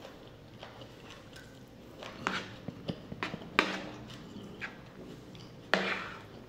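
Two young pets squabbling out of sight, several short sharp animal sounds with the loudest near the end, mixed with chewing and a metal spoon scraping a plate.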